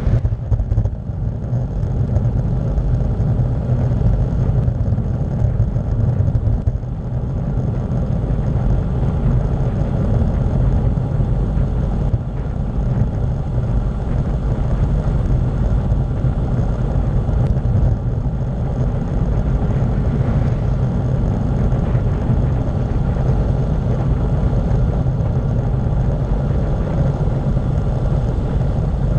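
Steady low rumble of wind buffeting the microphone of a bicycle-mounted camera as the bike coasts downhill at speed, mixed with tyre noise on asphalt.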